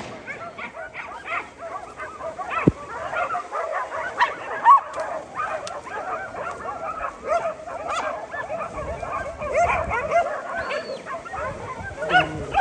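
A pack of hunting dogs barking and yelping without letup, many voices overlapping: dogs baying at a wild boar they have brought to bay.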